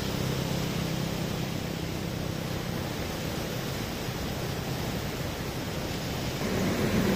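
Sea surf breaking and washing over a rocky reef shore, a steady rushing that swells near the end.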